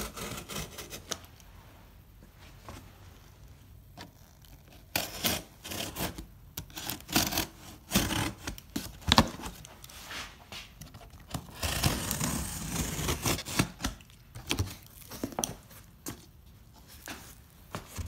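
Utility knife slitting the packing tape on a cardboard box, with irregular bursts of tape tearing and the cardboard flaps scraping and rustling as the box is opened. It is quieter for the first few seconds, then busy from about five seconds in.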